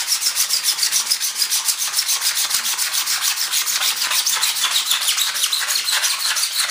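Single-edge razor blade scraped rapidly back and forth over a cured fiberglass-and-resin wing surface, a steady run of quick rasping strokes about five a second. The blade is knocking down excess cured resin, which flakes off and leaves the glassed surface smooth.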